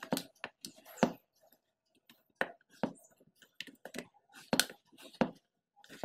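Knife cutting a thin green gram and egg dosa into pieces on a plate: a string of irregular clicks and taps, roughly one or two a second, as the blade tip strikes the plate and the cut pieces are moved and set down.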